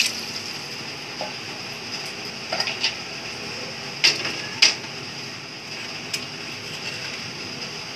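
A few light clicks and taps over a steady low hiss, typical of handling around a steel cooking pot.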